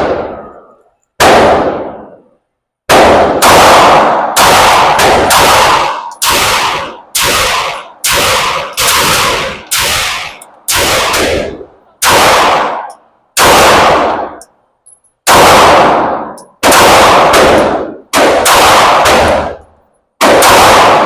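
Handgun shots at an indoor range, about twenty in a row at an uneven pace of roughly one every half second to second, with a few short pauses. Each shot is sharp and loud, with an echoing ring from the range walls.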